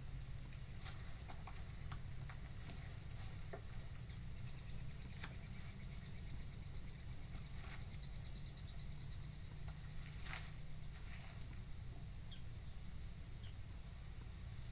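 Quiet outdoor film ambience of insects chirping over a steady low hum. About four seconds in, a rapid pulsed trill slides gently downward in pitch for several seconds. A few faint clicks are scattered through.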